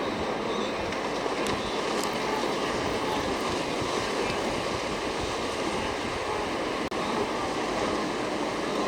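Steady rushing and splashing of water as a herd of wildebeest and zebras crosses the Mara River.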